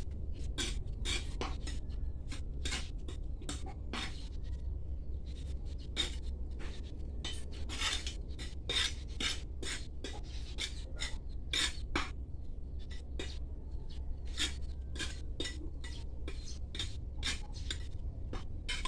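Potting soil being scraped and pressed into a terracotta pot with a small hand tool and fingers: an irregular run of short gritty clicks and scrapes, two or three a second, over a steady low hum.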